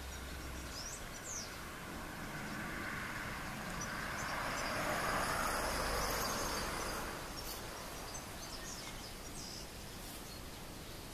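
Outdoor ambience: a broad rushing noise that swells and fades around the middle, with a few faint high chirps near the start and near the end.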